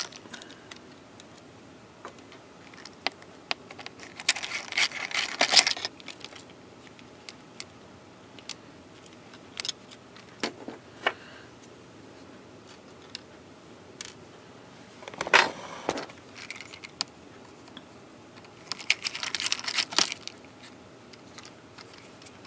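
Small screwdriver and tweezers working the screws out of an opened MacBook Pro: scattered light metallic clicks and ticks, with three short bursts of rattling clatter about four, fifteen and nineteen seconds in.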